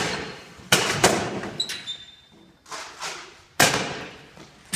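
Nerf Rival blasters firing and foam balls smacking into surfaces: five or six sharp thumps at uneven intervals, each ringing out briefly.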